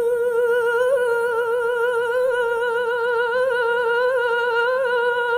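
A female singer holding one long note with an even, quick vibrato.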